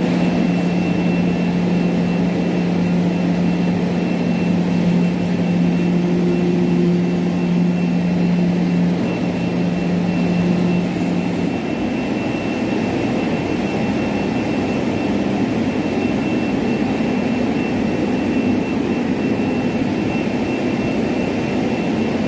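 CNC cutting machine for car leather floor mats running: a steady whir with a low hum that stops about halfway through, over a faint high steady tone.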